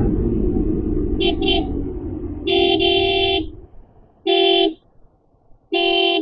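A vehicle horn honking: two quick short toots about a second in, a longer blast a moment later, then two more shorter blasts, the last near the end. Under the first half a low engine rumble fades away.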